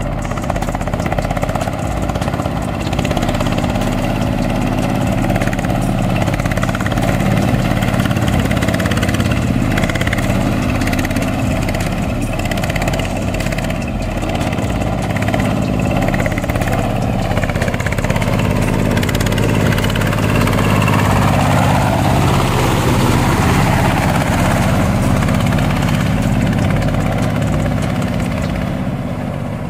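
Boat tractor's 20 HP diesel engine running steadily, with a slight rise and fall in its note about two-thirds of the way through.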